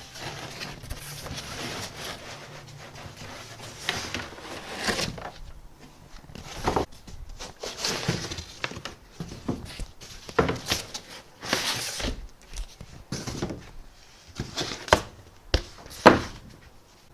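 Unboxing a large 3D printer: packaging rustling and scraping, then a run of sharp knocks and thumps as parts and packing are moved, the loudest two near the end.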